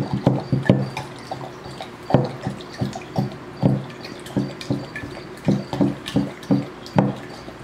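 Golden retriever lapping water from a coffee mug: quick runs of short, wet laps with brief pauses between the runs.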